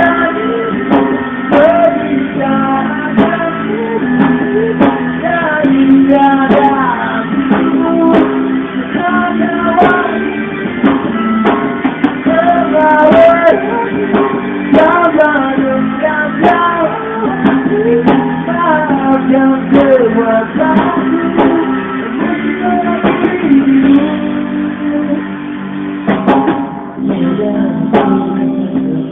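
A live band playing a song: guitar and drums under a melody line that bends up and down, with regular sharp beats, in a dull, narrow-sounding recording.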